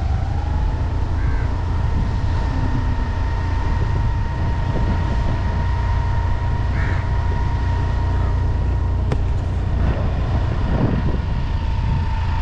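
Motorcycle cruising at a steady speed: a constant low rumble of engine and wind on the microphone, with a thin steady whine above it.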